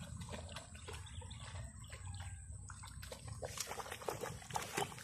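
Shih Tzu splashing and wading through a shallow muddy puddle, with a run of wet splashes near the end.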